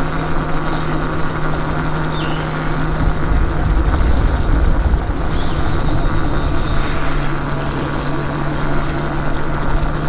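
A vehicle engine running steadily while driving slowly, a constant hum over a rough rumble that swells about four to five seconds in.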